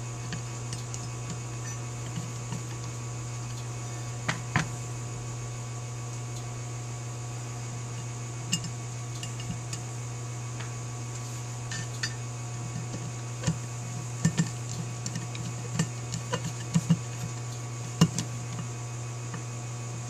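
Scattered light metallic clicks and taps as a screwdriver turns brass main jets into a Holley 4000 carburetor float bowl and the parts are handled, over a steady low hum.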